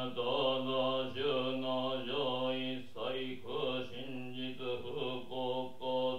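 A Jōdo Shinshu Buddhist priest chanting liturgy alone in a low male voice, with long held syllables that slide gently in pitch from one to the next.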